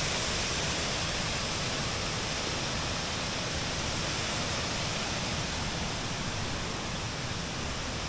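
Steady rushing of water falling over the tiered cascades of the Kuang Si waterfall into the turquoise pools.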